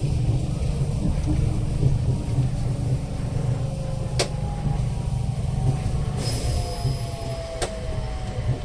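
Nippori-Toneri Liner rubber-tyred automated guideway train heard from inside the front car: a steady low running rumble, with the motor whine falling in pitch from about four seconds in as it slows into a station. Two sharp clicks, about halfway through and near the end.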